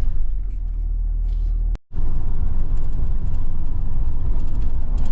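Road and engine noise of a moving vehicle, a steady low rumble. It breaks off for an instant about two seconds in and resumes a little louder, with faint light rattles.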